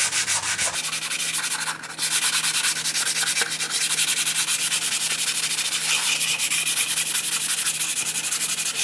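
Hand sanding of dried wall putty with 320-grit sandpaper wrapped around a wooden block, in quick back-and-forth strokes with a brief pause about two seconds in. The putty patch is being sanded flush with the old wall surface.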